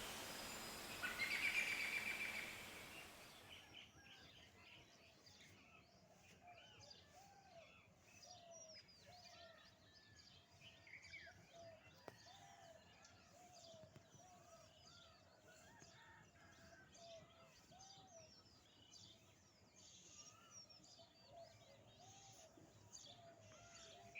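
Faint birdsong: many small birds chirping in short, arching notes scattered throughout, after a louder sound, the tail of the music, fades out in the first few seconds.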